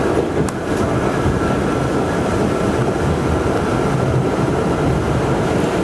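R68 subway car running at speed, heard from inside the car: a steady rumble of wheels on rail with a faint, steady high whine over it and a single click about half a second in.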